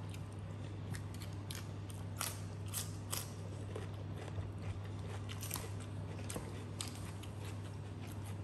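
A person eating crab and cucumber with her hands close to the microphone: chewing and crunching with many scattered short, sharp clicks, over a steady low hum.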